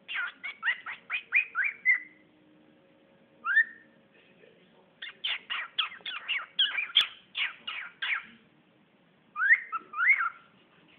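Cockatiel chattering in quick runs of short chirps and whistles, with a lone rising note in between and two rising whistles near the end.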